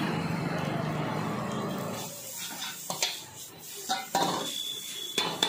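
Steel ladle and spatula clanking and scraping against a large iron wok as noodles are stir-fried and tossed. A steady hiss fills the first two seconds, then come several sharp metal clanks.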